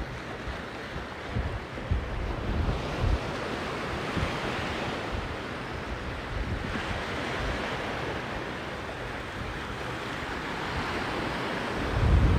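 Sea surf washing on the beach, its hiss swelling and easing, with wind buffeting the microphone. A strong gust near the end brings a loud low rumble.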